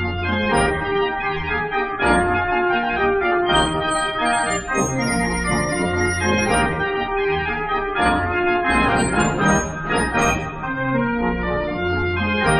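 The Dutch street organ De Grote Gavioli playing a tune, with held melody notes over a bass line that moves every half second or so, and a few sharp percussion strokes.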